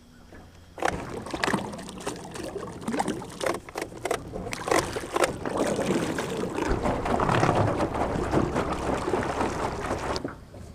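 Small aluminium jon boat under way on an electric trolling motor: water churning and slapping around the hull, with scattered knocks and rattles in the boat. It grows louder in the second half and cuts off sharply near the end.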